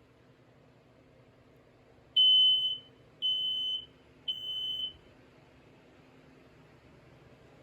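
Smoke alarm sounding three piercing beeps in a row, about half a second each with short gaps, the first loudest and the next two quieter: the three-beep pattern of a smoke alarm set off by its test button.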